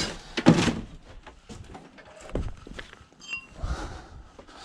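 Metal tools and scrap being rummaged through and handled in a box: a clatter about half a second in, then scattered knocks and clinks, with a brief high squeak past the middle.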